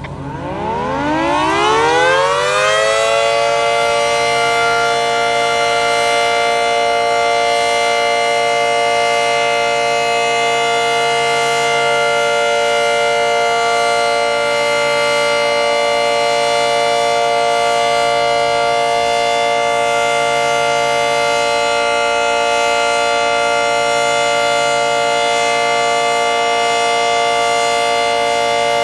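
Federal Signal 2T22 dual-tone outdoor warning siren winding up from a low pitch over about three seconds, then holding a loud, steady two-tone chord during a scheduled siren test.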